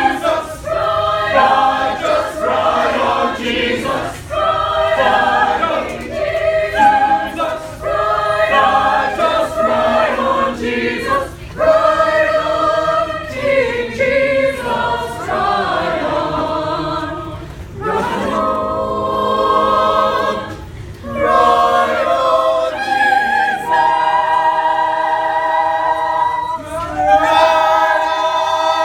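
A choir singing a cappella in several-part harmony, phrase after phrase, ending on long held chords.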